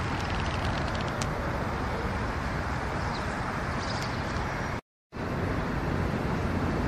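Steady outdoor background rumble of distant road traffic, briefly cut off about five seconds in.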